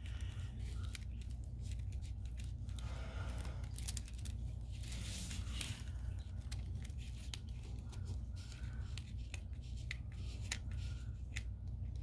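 A sheet of watercolour paper being handled and turned on the table: rustling and crinkling with many small sharp clicks and taps, and brief louder rustles about three and five seconds in.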